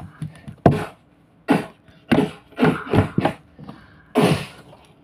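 A child's voice making short vocal fight sounds: about seven quick grunts and cries, one after another, without words.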